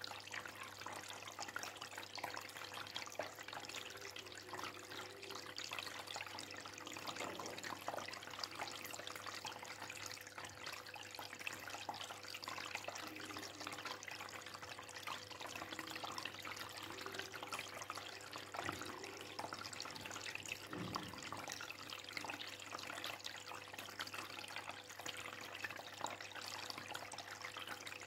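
Aquarium water trickling and bubbling steadily, with a faint steady hum underneath.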